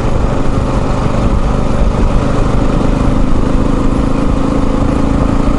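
Touring motorcycle's engine running at road speed, heard from the rider's seat over a steady rush of wind and road noise; about a second and a half in, the engine note settles into a steady hum.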